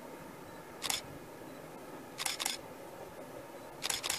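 Camera shutter clicking close by: one click about a second in, then two quick double clicks, the second pair near the end, over faint steady background noise.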